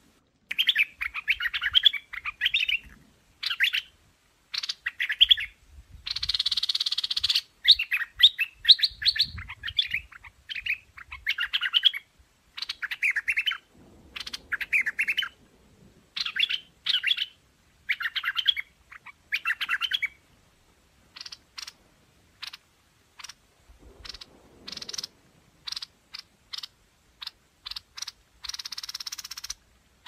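Streak-eared bulbul singing: short bubbly phrases repeated with brief gaps. After about 21 s they give way to a run of short, sharp call notes.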